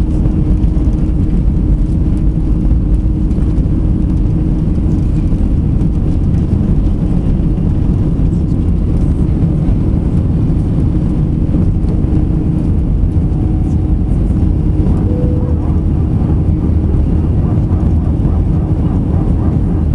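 Jet airliner's engines at takeoff power heard from inside the cabin: a loud, steady low rumble with a faint hum through it, during the takeoff roll and liftoff.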